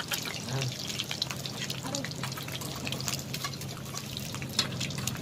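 Eggs frying in a pan of hot cooking oil: steady sizzling, with many rapid crackles and pops of spattering oil.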